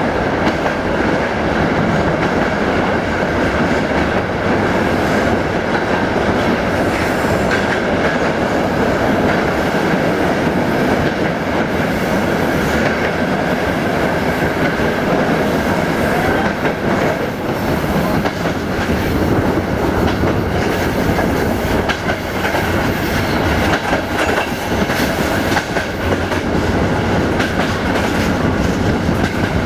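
Passenger train running at speed through a tunnel, heard from an open coach window: a loud, steady rumble of wheels on rails with the clatter of rail joints, until the train comes out into the open before the end.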